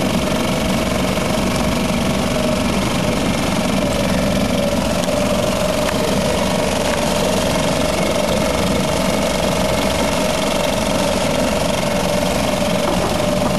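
Tohatsu MFS-3.5A single-cylinder four-stroke outboard motor running steadily, warmed up, at only a little more than idle with its lower unit in a test barrel of water.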